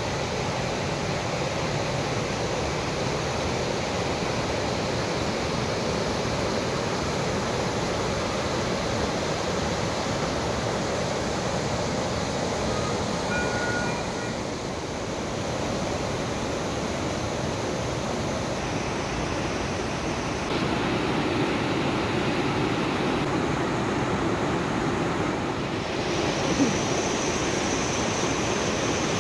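Lidder river rapids rushing over stones: a steady, even noise of running water that gets a little louder about two-thirds of the way through, with one brief thump near the end.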